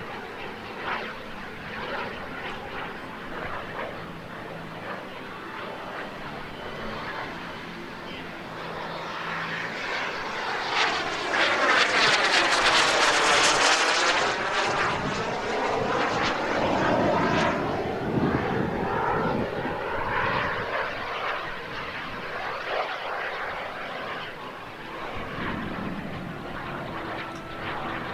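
Model jet turbine (B300F, 320 N thrust) of a large radio-controlled English Electric Lightning in flight, a rushing jet noise. It builds to a loud pass about eleven to fourteen seconds in, sweeping in pitch as it goes by, then fades but stays audible as the jet flies on.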